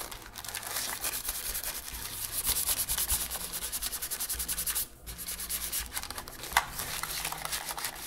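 Folded coffee filter damp with rubbing alcohol, rubbed quickly back and forth over the plastic shell of an Xbox One controller: a fast run of scratchy rubbing strokes, with a brief pause about five seconds in.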